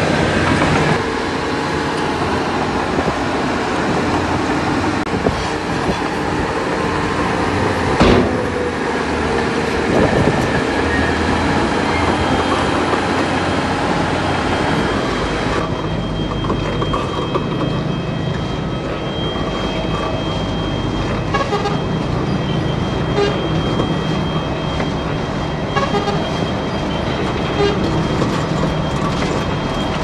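Heavy earthmoving machinery's diesel engine running steadily at a low pitch, with scattered metal clanks. A sharp bang about eight seconds in is the loudest moment, followed by a smaller knock. About halfway through the higher hiss drops away and a thin steady whine remains.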